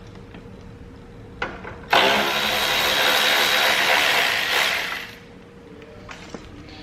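A handheld power tool running for about three seconds. It starts sharply about two seconds in and trails off, with a faint knock just before it.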